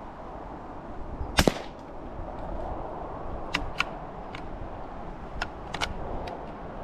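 A single shot from a Ruger bolt-action .22LR rifle about a second and a half in, followed by several lighter, sharp clicks over the next few seconds.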